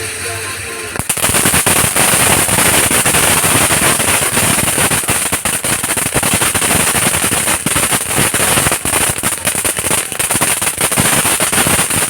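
Dragon Fireworks 'Dance of Fireflies' firework going off: a dense, rapid crackling of many small pops that starts suddenly about a second in and keeps up steadily.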